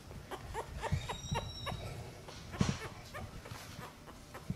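A four-week-old French bulldog puppy at a spoon of puppy mush, giving a thin high whimper about a second in. Short soft clicks and wet smacks come from the puppy and the spoon at the food.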